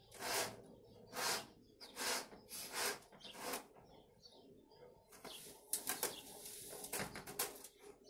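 Insulated electrical wires being pulled by hand through metal conduit: a rhythmic swish of insulation sliding through the pipe with each hand-over-hand pull, about one pull a second, then a faster stretch of rasping and clicking near the end.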